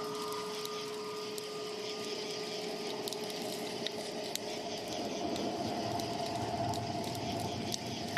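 Dark ambient noise from a metal record's intro: a steady hissing drone with scattered clicks and crackles. A low rumble and a faint held tone swell about halfway through.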